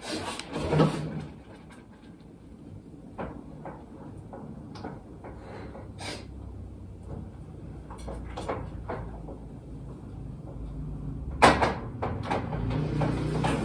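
Scattered knocks and clicks of kitchen handling, with a louder one about a second in and another near the end, over a low steady rumble that grows toward the end.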